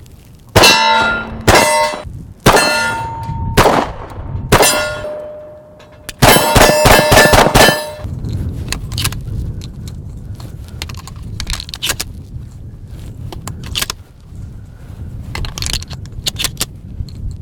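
Steel targets ringing as they are hit by gunfire: five single clangs about a second apart, then a fast string of about eight in under two seconds. After that come quieter scattered clicks.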